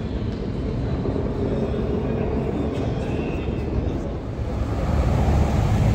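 Low, steady rumble of motor vehicles on a city street. It grows louder over the last second or so as motorcycles approach.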